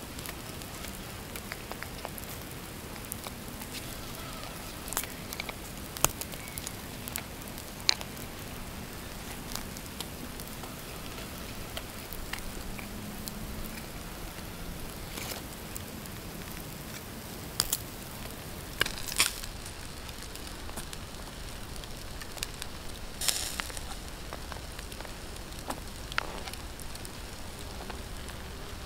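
Campfire coals crackling with a steady hiss, with scattered sharp pops and clicks as zucchini slices and cherry tomatoes are set on a wire grill grate.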